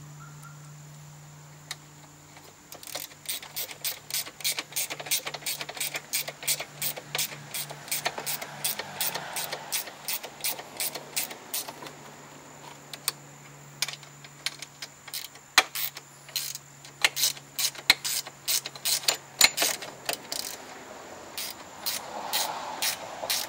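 Hand socket ratchet clicking rapidly as 7/16-inch screws are driven in, in runs of quick strokes with a short break near the end.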